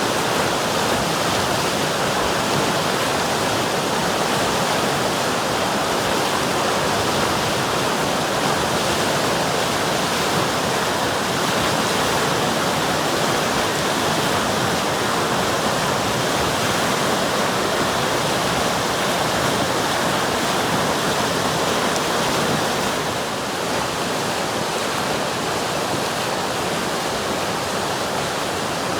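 River water rushing and splashing over rocks: a steady, even rush, dropping slightly in level about 23 seconds in.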